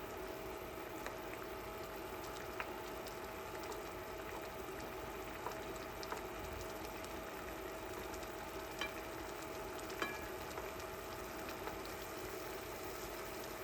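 Sundae (Korean blood sausage) sizzling as it is stir-fried in a pan, with a few light clicks of a utensil against the pan.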